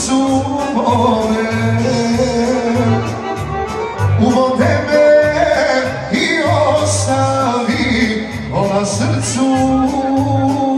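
Live male vocal on a handheld microphone with electronic keyboard backing, amplified through a PA, over a steady low beat.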